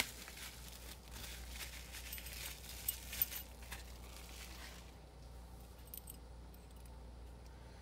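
Plastic bubble wrap crinkling as it is pulled off a small brass Lockwood padlock, with two sharper clicks about three seconds in. After about five seconds the crinkling stops, leaving only faint handling of the padlock.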